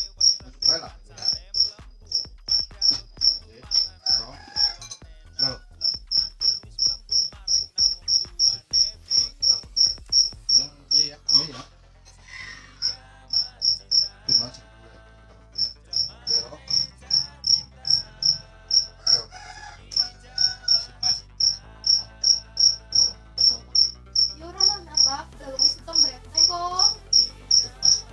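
A cricket chirping in a steady rhythm, about three high-pitched chirps a second, with a short break midway.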